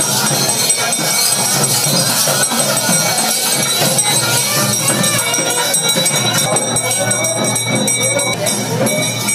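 Devotional music with steady jingling and ringing, over a crowd of voices singing and calling.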